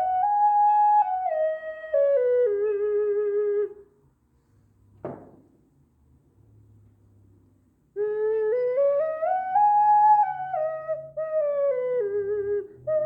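Ocarina playing a simple melody that steps up in pitch and back down, with a few warbling notes at the end of the phrase. After a pause of about four seconds, broken by one short click, the same rising-and-falling phrase is played again.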